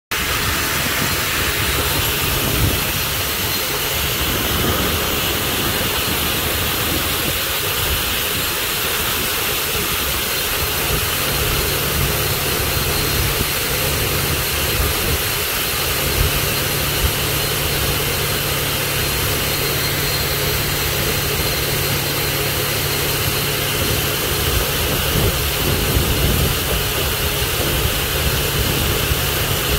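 Several high-pressure water streams blasting steadily from a fire pump test header's outlets and spraying onto the pond, a loud, even rush with a steady low hum under it, as the fire pump runs at flow during its annual test.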